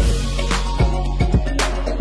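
Background music with a steady drum beat over a deep bass line.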